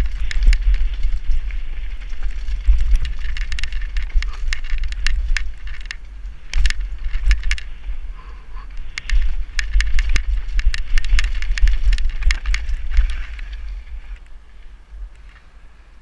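Downhill mountain bike ridden fast over a rough trail: the bike's chain, frame and tyres rattling and clattering over rocks and roots, with wind buffeting the helmet-mounted microphone. The clatter thins out and gets quieter near the end.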